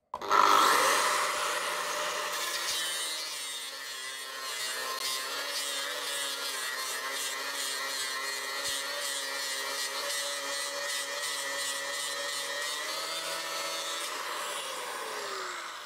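Angle grinder with a fiber disc spinning up and grinding a steel bar: a steady grinding hiss over the motor's whine, loudest just as it starts. Near the end the grinder is lifted off and the motor winds down with a falling whine.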